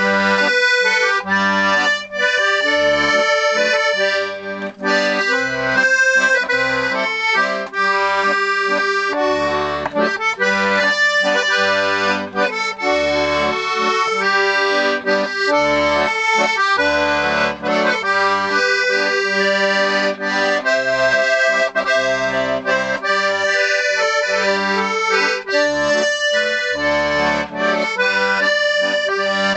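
Royal Standard 32-bass accordion being played: a melody on the treble side over alternating bass notes and chords, with a tremolo sound. Its reeds are freshly rewaxed and its bellows repaired, and it is slightly out of tune, needing a little tuning.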